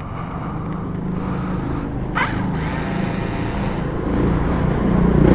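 A motor vehicle engine running steadily, getting louder near the end, with a brief squeak about two seconds in.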